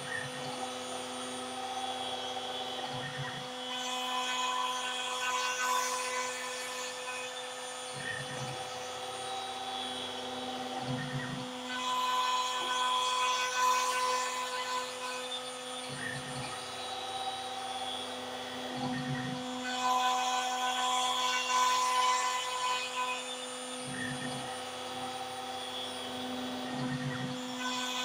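Stepcraft M1000 CNC router's 1 kW milling spindle running at a steady pitch while a facing bit cuts across the top of a wooden board. The cutting noise swells and fades about every eight seconds as the bit passes back and forth over the wood.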